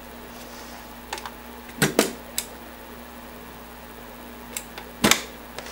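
Eject mechanism of a slim Compaq 5.25-inch floppy drive clicking and snapping as it is worked by hand: a few light clicks about a second in, two sharp snaps about two seconds in, and another near the end. The mechanism is freshly greased after being gummed up and is starting to move more easily.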